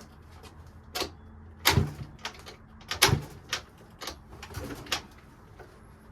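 A stuck scooter seat being forced on a SYM DD Sport 50cc moped: irregular clicks and knocks from the seat and its latch as they are pushed and jolted. Two knocks about two and three seconds in are the loudest.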